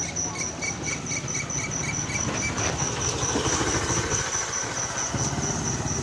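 A high-pitched chirp repeating about five times a second, over the low steady hum of an idling engine.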